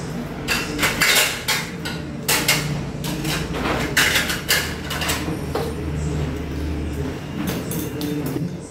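Chopsticks clicking and scraping against a porcelain rice bowl and plates while eating, a scatter of sharp clinks with a few louder clusters.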